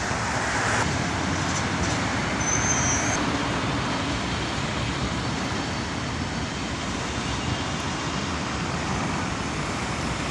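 Steady road traffic noise, with no single vehicle standing out.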